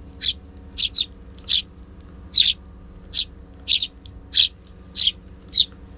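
Sparrow chirping over and over: about ten short, sharp, high chirps, roughly two a second, over a faint steady low hum.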